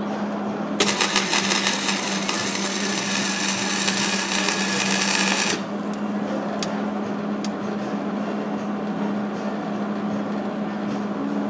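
Hobart Handler 140 wire-feed welder's arc crackling and hissing as a repair weld is laid on steel. It starts about a second in and cuts off sharply after about five seconds, followed by a couple of light clicks. A steady hum sits underneath.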